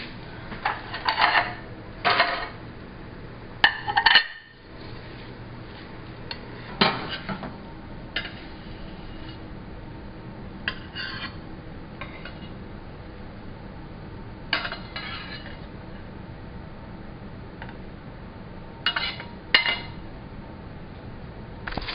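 A metal spatula scraping and clinking against a stainless steel frying pan in short bouts every few seconds, as scrambled egg is worked around and scraped out of the pan.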